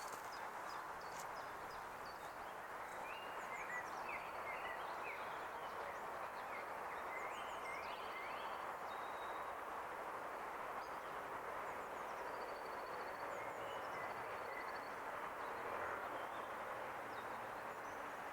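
Birds chirping and trilling in short phrases several times, over a steady, faint outdoor background hiss.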